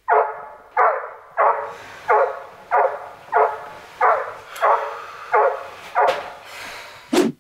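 A dog barking over and over in an even rhythm, about three barks every two seconds, with a shorter, sharper bark near the end.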